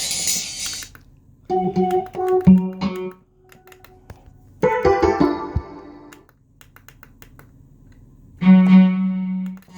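Korg X3 synthesizer playing short phrases of its factory sounds, piano-like tones among them. The phrases are separated by pauses, with faint clicks in the gaps.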